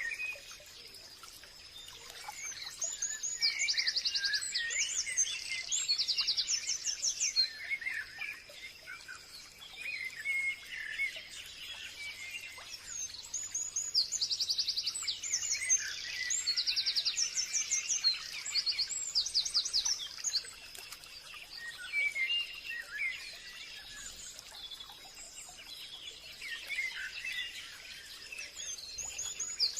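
Forest birds singing: spells of rapid, very high trills and scattered lower chirps and whistles, over a faint steady high-pitched hum.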